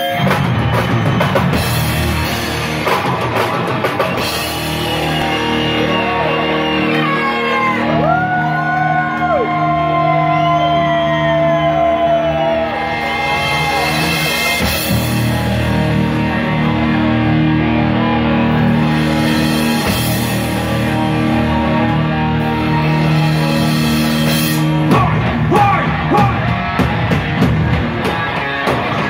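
Live heavy metal band playing loud distorted electric guitars, bass and drum kit, with sustained chords and long sliding notes. About 25 seconds in, a denser, choppier riff with drums comes in.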